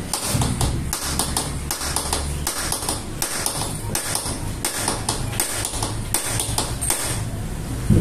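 Rapid metallic clicking in irregular runs from a ratchet wrench being worked back and forth on the steering-stem nut of a Euro Motor Samurai 155 scooter, over a low steady hum.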